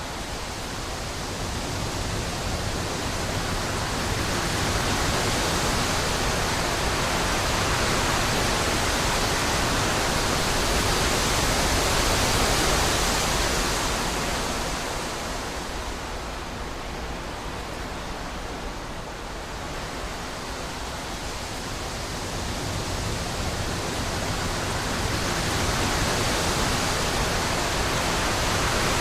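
Wind blowing in a steady rush that swells over the first few seconds, eases off around the middle, and builds again near the end.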